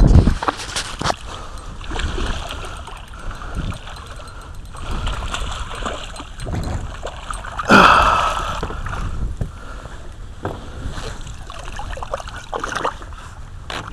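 Water splashing at the surface as a hooked fish thrashes beside a kayak: irregular small splashes, with one louder splash about eight seconds in.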